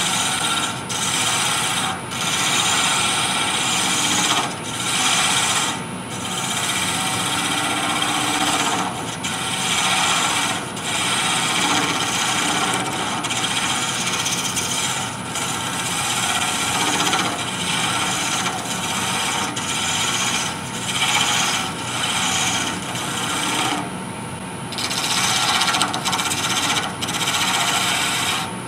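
Wood lathe spinning a small wooden spindle while a narrow hand-held turning tool cuts a tenon into it: a steady scraping hiss of the edge shaving wood, broken every second or two by short pauses as the tool comes off the cut, with a longer pause about 24 seconds in.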